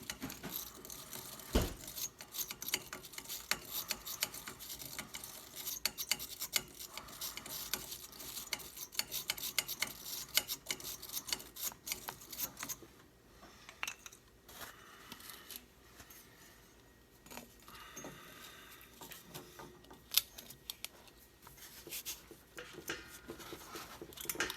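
Threaded pipe fitting being turned and worked onto pipe-dope-coated pipe threads: a dense run of light metal clicks, clinks and scrapes, thinning out for a few seconds around the middle before picking up again.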